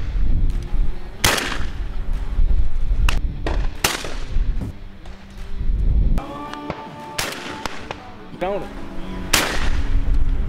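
Shotgun fire at doves: four loud shots a couple of seconds apart, each ringing out briefly.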